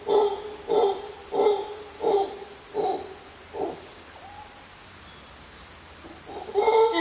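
Mantled howler monkey calling: a run of short, pulsed calls about every two-thirds of a second, fading out after about four seconds. A couple of seconds later, near the end, a loud, sustained howl begins.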